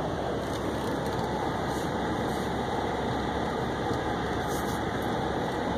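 An Acura car driving on a gravel road, heard from inside the cabin: steady engine and tyre noise with no change throughout.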